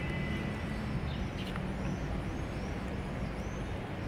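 Steady background rumble and hiss, like distant traffic, with a few faint high chirps like a small bird's near the middle. Faint taps of the cardboard viewer's panels being handled sit on top.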